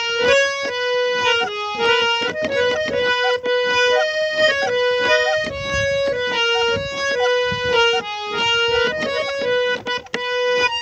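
Harmonium playing a quick melody of changing notes over a steadily held note: an instrumental passage of a ragni.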